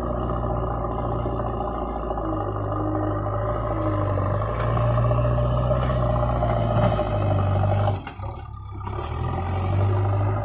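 Diesel engine of a JCB 3DX backhoe loader running under load as its front loader bucket digs into and lifts sand; the engine note swells and eases several times and drops away sharply for a moment about eight seconds in.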